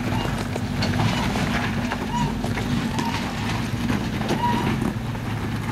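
Off-road pickup truck crawling over large rocks at low speed: the engine running low and steady under many scattered knocks and clicks of tyres and rocks, with a couple of short high squeaks.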